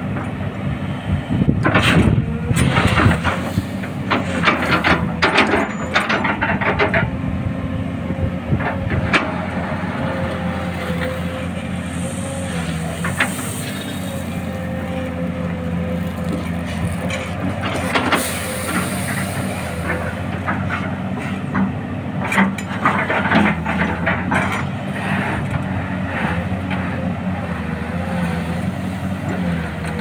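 XCMG XE215C hydraulic excavator's diesel engine running steadily with a steady whine, while its steel bucket digs into and dumps gravel, giving several bursts of rattling, scraping stones.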